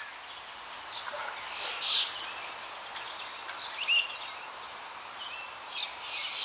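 Birds calling outdoors: scattered short chirps and sliding whistles, the loudest about two and four seconds in, over a steady background hiss.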